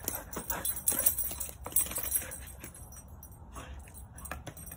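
Scattered light clicks and a faint jingling as a dog moves about on paving tiles, getting quieter toward the end.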